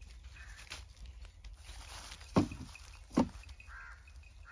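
Two dull knocks about a second apart as a brick is handled on the mud-sealed lid of a cooking pot buried in the ground.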